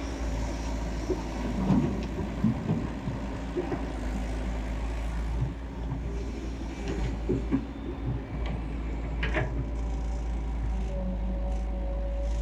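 Excavator's diesel engine running steadily under work, with scattered knocks and clanks from the machine. A thin steady whine comes in near the end.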